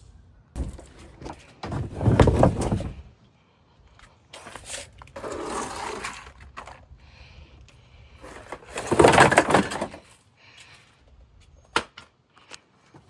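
Broken plastic headphone pieces being handled and thrown into a trash bin: three bursts of rustling and clattering, the loudest near the end, then a couple of sharp clicks.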